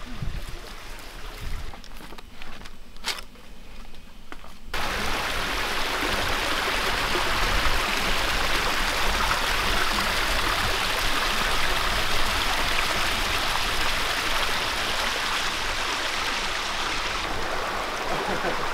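Creek water rushing over rocks: a steady rush that starts suddenly about five seconds in. Before it, the sound is quieter, with a low rumble and a few knocks.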